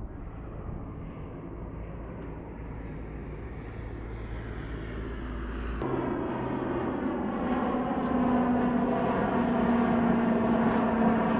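Propeller airplane flying overhead, its engine drone growing steadily louder.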